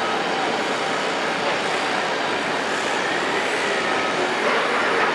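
1960 Demag portal crane travelling along its rail gantry: a steady noise of steel wheels running on the rails, with faint drawn-out squealing tones over it.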